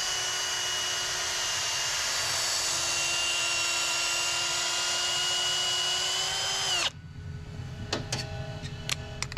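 Cordless drill spinning a reamer through a new bronze valve guide in an aluminium cylinder head, lubricated with Windex, to ream the guide to size. The drill runs at a steady whine for about seven seconds, its pitch sagging slightly just before it stops, followed by a few light clicks.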